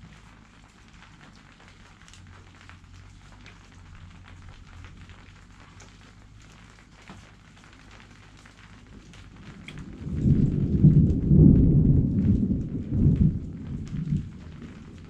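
Light rain pattering, then about ten seconds in a loud, low rumble of thunder rolls in and dies away over about four seconds.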